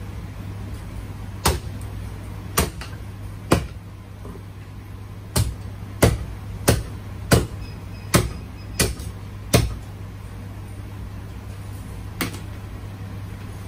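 Cleaver chopping on a wooden block, about a dozen sharp chops at uneven intervals, with a quick run of seven in the middle, over a steady low hum.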